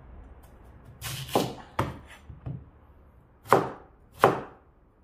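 Kitchen knife slicing through a Korean radish (mu) and knocking down onto the cutting board, about six crisp cuts at uneven intervals, the last two the loudest.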